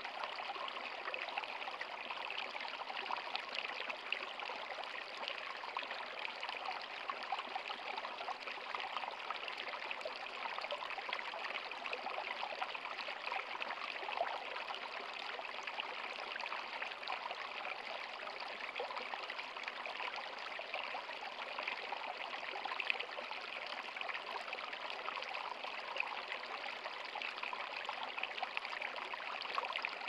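Shallow stream running over stones, a steady babble of water that does not let up.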